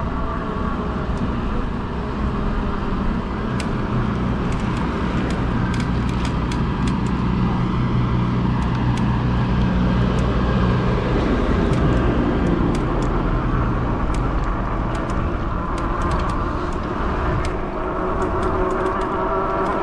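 Road traffic heard close by while riding: a motor vehicle's steady engine hum and tyre noise, with scattered light clicks.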